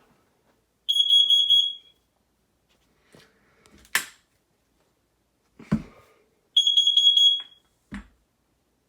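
Family Gard FG888D smoke alarm's piezo horn sounding under test: two short bursts of rapid, shrill beeping several seconds apart. A sharp click and a couple of dull handling knocks fall between them.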